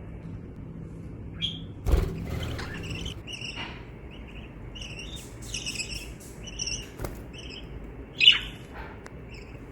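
Pet budgerigar chirping and chattering in a string of short, high chirps, with one louder call near the end. A thump about two seconds in and a sharp click a few seconds later.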